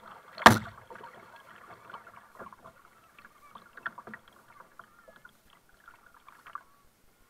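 Double-bladed kayak paddle strokes: water splashing and dripping off the blades, with scattered light clicks and trickles. One sharp knock about half a second in is the loudest sound.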